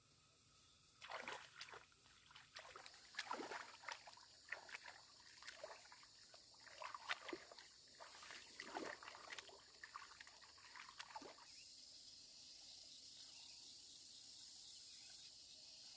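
Faint, scattered rustling and clicking for about eleven seconds, then a steady high hiss.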